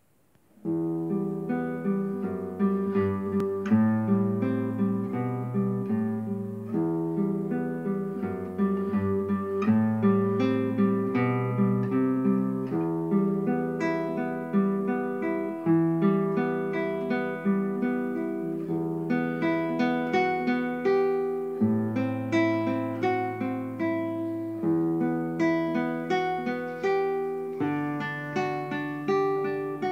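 Solo classical guitar playing a slow, gentle piece: plucked single notes over held bass notes, starting about a second in.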